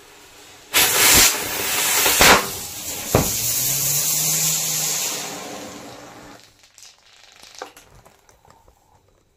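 Diwali firecrackers going off: four sharp bangs in the first three and a half seconds over a loud fizzing hiss of burning powder that fades away after about six seconds, then a few small pops.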